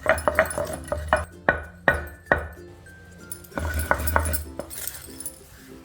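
Dried red chillies and rock salt being pounded in a stone mortar: a run of knocks and clinks in the first couple of seconds and again about four seconds in, over soft background music.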